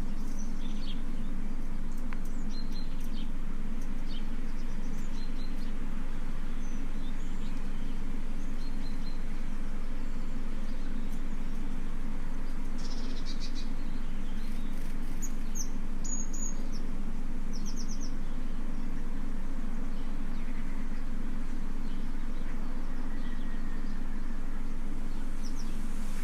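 A steady low background drone, unchanged throughout, with scattered faint bird chirps above it.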